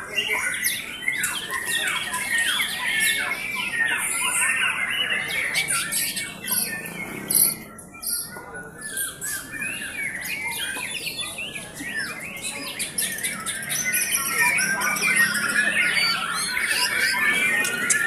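Several caged white-rumped shamas (murai batu) singing at once: a dense, overlapping tangle of quick whistled phrases and sharp chattering notes, easing a little in the middle.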